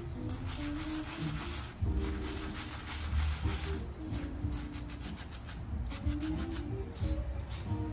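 Silicone spatula rubbing and scraping over a stainless-steel mesh sieve, pushing coarse blue-tinted dry ingredients through in repeated gritty strokes.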